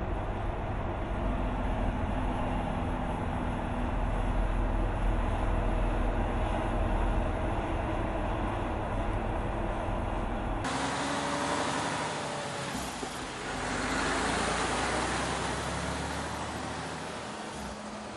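Mercedes-Benz Actros truck's diesel engine running under way, a steady low drone. About two-thirds of the way through the sound changes abruptly to a brighter rush of tyre and road noise that swells as a truck passes and then fades as it moves away.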